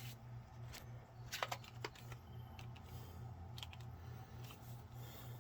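Faint, irregular key clicks, about a dozen spread over a few seconds, over a steady low hum.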